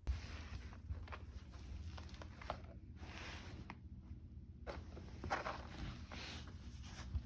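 Flowers and leaves rustling and crinkling in several short swishes, with light taps and clicks, as they are pawed and pushed around.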